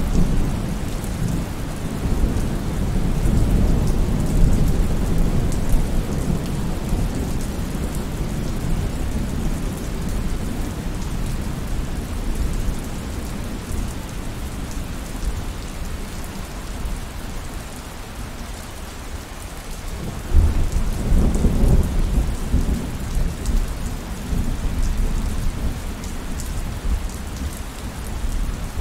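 Heavy rain falling steadily, with rolling thunder: a low rumble that fades away over the first half, then a fresh roll of thunder breaking in suddenly about two-thirds of the way through and slowly dying down.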